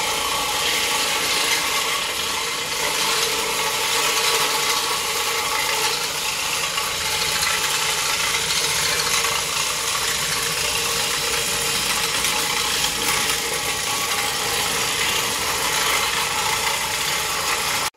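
XL Pro floor machine running steadily, its spinning bonnet pad scrubbing across carpet during encapsulation bonnet cleaning, with a constant motor hum under the scrubbing noise. The sound cuts off abruptly at the end.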